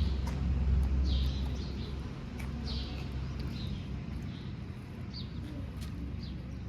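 Low diesel engine drone of heavy machinery, stronger for the first two seconds and then easing to a softer run, with birds chirping briefly several times over it.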